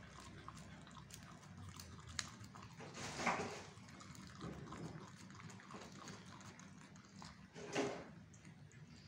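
A dog eating rice from a metal plate: wet chewing and lapping with many small clicks, and two louder smacking bursts, one about three seconds in and one near the end.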